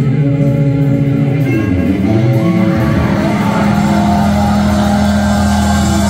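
Loud live band's amplified electric guitars and bass holding sustained notes, shifting a few times and then settling into one steady held chord about three seconds in.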